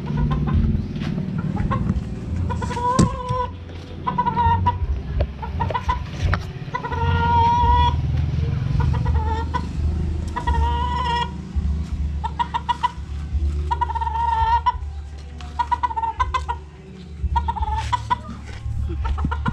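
Chickens clucking and calling over and over, short pitched calls about once a second, over a steady low rumble.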